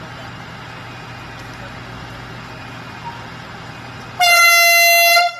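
A Philippine National Railways train standing at the platform with its engine running steadily. About four seconds in, one loud horn blast on a single high note lasts about a second and cuts off sharply.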